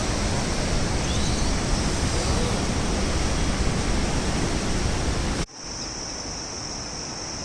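Loud, steady rush of flood water in a swollen river. About five seconds in it cuts off abruptly to a quieter rush with a steady high-pitched hiss over it.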